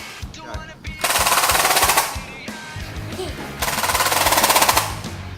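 Two bursts of rapid automatic gunfire, the first about a second in and lasting about a second, the second starting past the middle and running a little longer, over background music with a steady beat.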